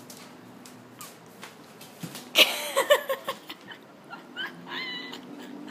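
Golden retriever whining: a cluster of short, bending cries about two and a half seconds in, then thinner, higher whines about a second and a half later, with scattered light clicks between.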